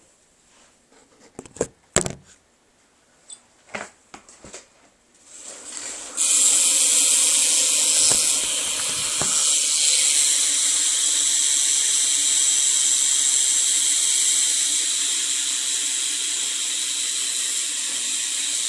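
Rear hub of a BMX wheel buzzing as the wheel spins freely, its pawls clicking so fast they run together into one steady, loud buzz. It starts about six seconds in, after a few knocks and clicks of the bike being handled.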